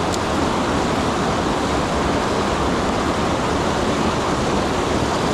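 Steady rush of whitewater rapids pouring over river rocks.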